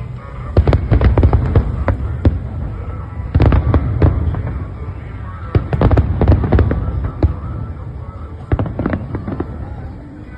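Fireworks exploding in rapid volleys of sharp bangs over a heavy low rumble. There are four clusters of reports, the densest about a second in and around four and six seconds in, and a shorter one near nine seconds.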